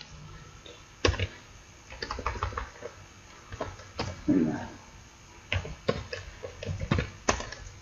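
Computer keyboard typing: scattered keystrokes and a few sharper key clicks. A short murmur of a voice comes about four seconds in.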